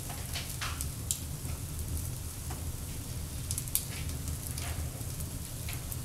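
Open wood fire of pine cones, pine and holm oak logs crackling, with scattered sharp pops, the loudest about a second in and near the middle, over a steady low rumble.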